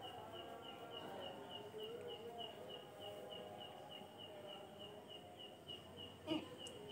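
Faint, even chirping at one steady pitch, about four chirps a second, from a small animal such as a cricket. Faint wavering tones sit underneath, and a brief louder sound comes near the end.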